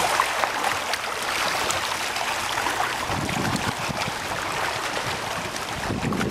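Sea water lapping and washing steadily at the shoreline, with a low rumble joining in about halfway through.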